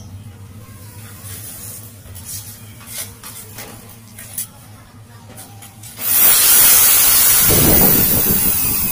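Faint clicks and knocks, then a loud, steady hiss that starts suddenly about six seconds in.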